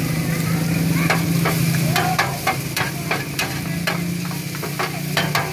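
Rice pin noodles stir-fried in a wide steel pan: a steady sizzle, with metal utensils scraping and clinking against the pan in quick, irregular strokes from about a second in. A low steady hum runs underneath.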